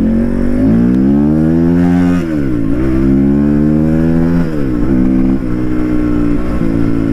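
Crossfire off-road motorcycle engine revving at low speed. Its pitch climbs over the first two seconds, drops sharply and picks up again, dips once more near five seconds, then holds fairly steady with small throttle blips.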